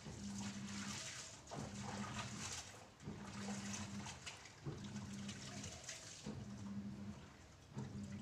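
Clothes being hand-washed in a basin of water: rhythmic scrubbing and sloshing strokes about every one and a half seconds, each followed by a short low hum.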